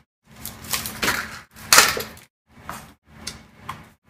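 Cardboard and plastic toy packaging being torn open and handled: short, irregular bursts of rustling and crinkling with brief pauses between them.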